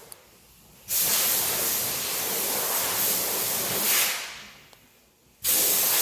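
Loud hissing in two long bursts: the first starts about a second in, runs about three seconds and dies away, and the second starts near the end.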